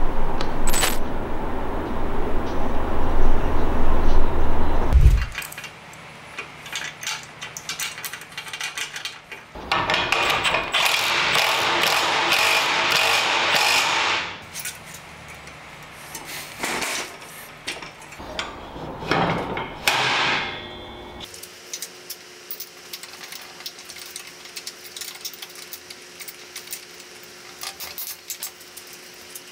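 A cordless impact wrench hammering a bolt tight on a steel mini-bike frame: one run of about four seconds, then a few short bursts. Before it, a low rumble stops abruptly about five seconds in. Afterwards there are only faint clicks of metal parts being fitted by hand.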